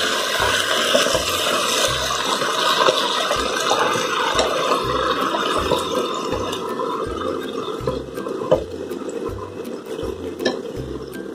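Iceberg lettuce sizzling in hot lard in a wok over high heat: a loud, steady hiss that eases off after about six seconds. A few knocks and scrapes of a wooden spatula against the pan come in the last few seconds.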